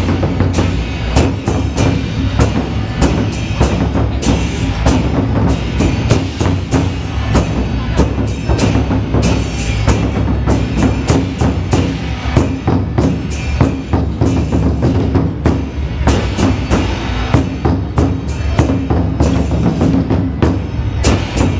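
Ensemble of large Chinese barrel drums (tanggu) beaten with wooden sticks, playing a fast, dense, unbroken rhythm of heavy strokes.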